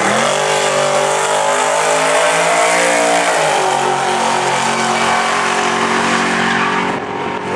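Ford Lightning pickup and another car at full throttle down a drag strip, engines climbing in pitch off the launch and holding high. The pitch drops a little over three seconds in as a gear changes, then the engines run on steadily as they pull away.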